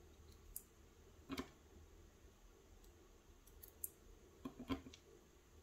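Faint metallic clicks of steel tweezers and small brass pins against the body of a tubular lock as the pins are set back into its chambers: a few scattered light clicks, the most distinct about a second in and a small cluster near the end.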